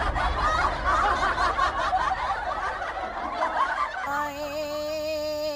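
Cackling laughter as a ghost sound effect, in quick pulses. About four seconds in it gives way to a long held note in a female singing voice with a slight wobble.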